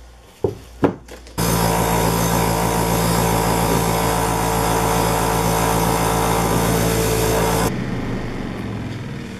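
A couple of knocks, then a bench grinder's wire wheel running with a steel file pressed against it, a loud, steady brushing noise over the motor's hum, cleaning rust and grime out of the file's grooves. Near the end the file comes away and the wheel runs on more quietly, fading.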